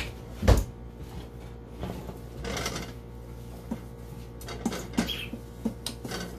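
Kitchen handling noises: a heavy thump about half a second in, then scattered light knocks and a brief rubbing as a cloth wipes down the counter, over a low steady hum.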